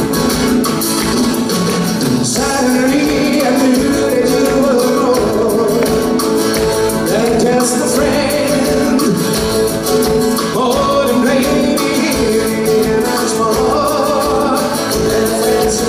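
Live band playing a pop song over guitar and a steady drum beat, with a lead voice singing from about two and a half seconds in.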